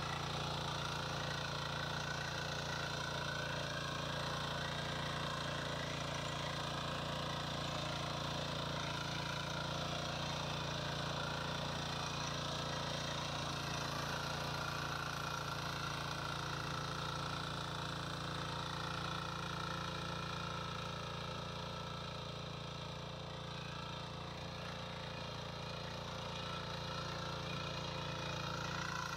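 Shrachi walk-behind power weeder's small engine running steadily under load while its rotary tines till soil between crop rows. It grows slightly quieter for a few seconds about three-quarters of the way through.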